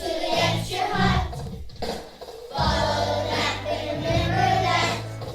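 Children singing together as a group over instrumental accompaniment with sustained bass notes.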